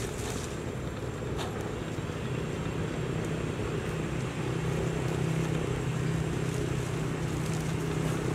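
Vehicle engine running steadily, a low drone that grows a little stronger about two seconds in.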